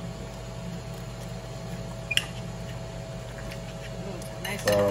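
Fork and knife cutting a crumb-coated chicken tender on a ceramic plate, with one sharp clink of metal on the plate about two seconds in, over a steady low hum. A voice comes in near the end.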